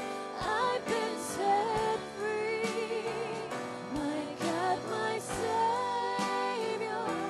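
Live worship band playing a Christian song: women singing a melody with vibrato over keyboard chords and a drum kit.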